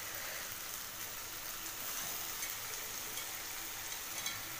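Spice paste and shredded boiled banana flower sizzling steadily in oil in a wok, with a few faint clicks near the end.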